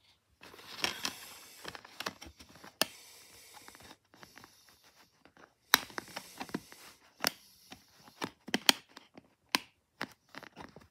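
Hands handling a clear plastic DVD case with the disc inside: rustling, with a run of sharp plastic clicks and knocks, the loudest about three, five and a half, seven and nearly nine seconds in.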